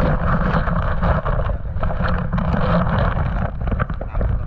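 Wind buffeting the microphone over a steady rushing, splashing water noise, with a low fluttering rumble and scattered crackles throughout.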